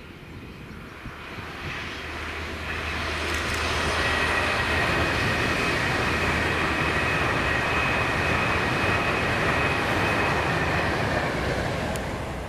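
Class 390 Pendolino electric train passing at speed. Its rolling noise builds over the first few seconds, holds steady with a high whine in two notes, then fades near the end.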